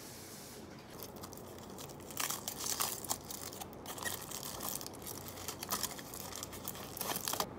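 Aluminium foil crinkling and crackling in irregular bursts as it is unwrapped by hand from a tortilla, loudest near the end.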